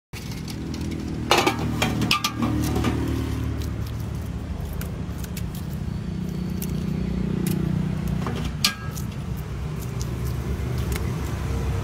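A few sharp clinks of boiled eggs knocking against each other and the aluminium pot as a hand gathers them from the water, heard over a steady low hum like a motor running.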